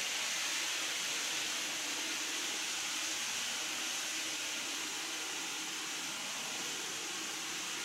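Steady, even hiss that eases off slightly toward the end.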